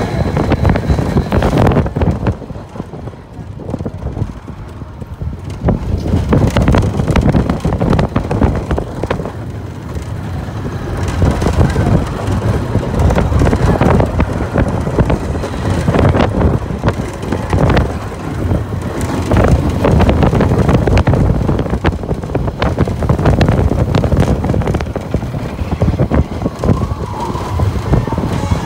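Riding aboard a roller coaster train: wind buffeting the microphone over the rumble and clatter of the train's wheels on the steel track. There is a quieter stretch a couple of seconds in, then the noise builds again.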